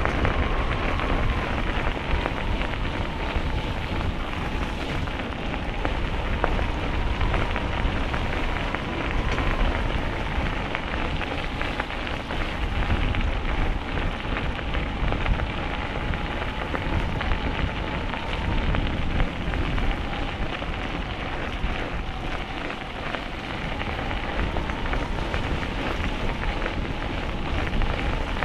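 Steady rushing noise from a bicycle ride: wind buffeting the microphone and tyres rolling over the path, with a faint steady whine throughout.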